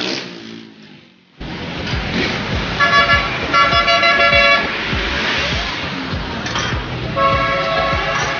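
Busy street ambience with a vehicle horn honking in long blasts, once about three seconds in and again near the end, over a steady hiss. The sound fades out and then cuts back in abruptly about a second in.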